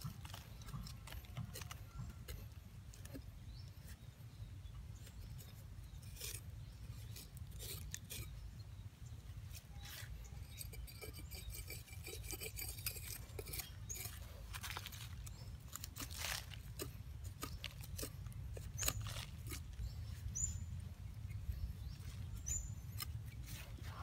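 A flat metal blade digging and scraping in loose soil, making irregular scrapes and crunches of dirt over a steady low rumble. A few short high chirps near the end.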